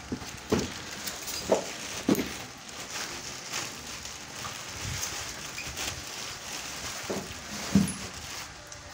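Clear plastic bag crinkling and rustling as it is pulled off a new tall tubular battery, with four short, dull knocks from the battery and packing being handled.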